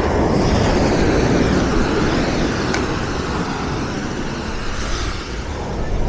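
Small sea waves breaking and washing up over a sand-and-pebble shore: a steady surf hiss and wash, loudest in the first couple of seconds as a wave runs up, easing, then swelling again near the end.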